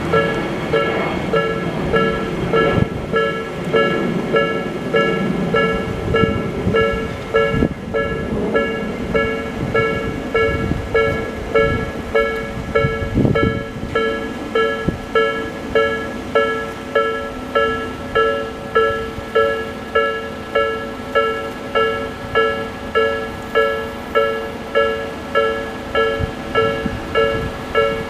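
Japanese level-crossing alarm with the slow-tempo Nikko-type electronic bell tone, dinging steadily about one and a half times a second. A passing train rumbles under it for the first several seconds, then fades.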